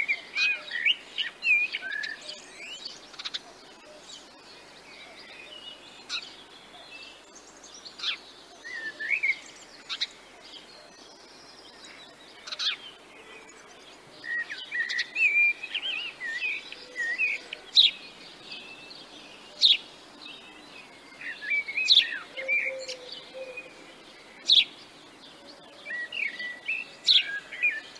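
Small songbirds chirping: short, sharp high calls and brief twittering phrases, coming in clusters every few seconds.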